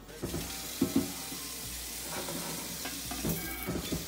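Kitchen tap turned on, water running into a stainless steel pot in the sink with a steady hiss. Two sharp knocks about a second in, with a few lighter knocks later.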